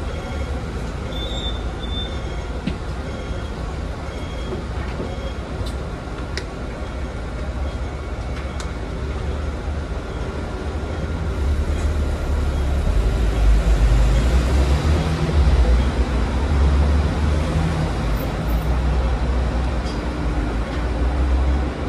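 Hong Kong double-decker tram with VVVF drive running along street track, heard aboard: a steady deep rumble with a few sharp clicks in the first half, the rumble growing louder from about halfway through.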